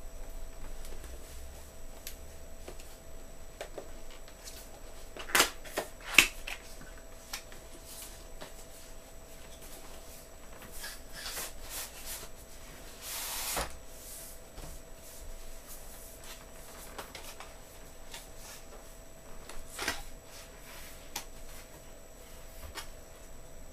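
Hands handling a keyboard's cardboard and plastic packaging: scattered light clicks and rustles, two sharp loud clicks about five and six seconds in, and a short rustling burst about thirteen seconds in.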